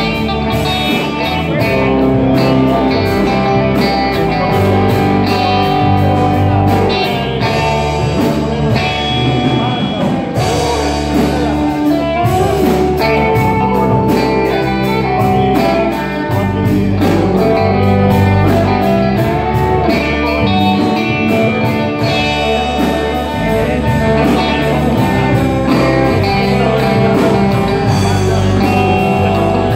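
Live band playing amplified: electric guitars and bass guitar over a steady drum beat.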